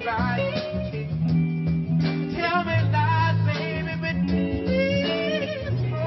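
Live soul band music: guitar and bass guitar playing a slow blues-tinged number, with singing and a few drum hits.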